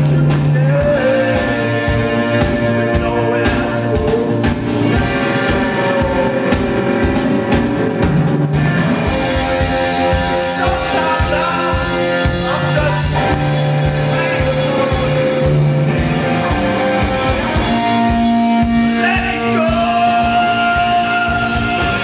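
A live rock band playing: electric guitar and bass guitar over a steady drum beat, with a man singing lead at times.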